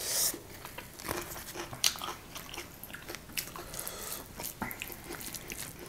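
Close-miked eating sounds: chewing and biting with small crackles and clicks, as flaky Kerala parotta flatbread is torn by hand and eaten. There is a loud crisp crunch right at the start.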